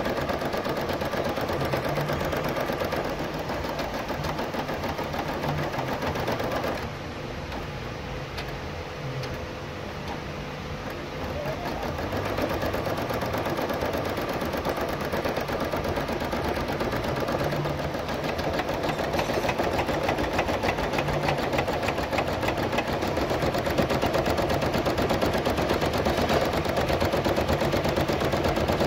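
Brother 700E domestic embroidery machine stitching out lettering: a fast, steady needle clatter that turns quieter for a few seconds about a quarter of the way in, then picks up again.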